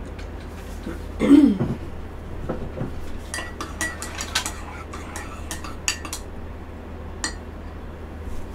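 Coffee being stirred in a mug: a series of light clinks and taps of the stirrer against the mug, with one louder, brief sliding sound about a second in.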